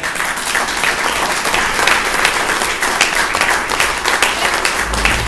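Audience applauding, a steady dense clapping that starts right as an award is announced.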